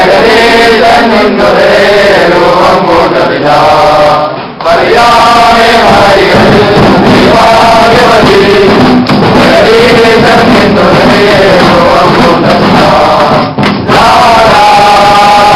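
A group of men singing a Christmas carol together, loud and close, with short breaks between phrases about four seconds in and again near the end.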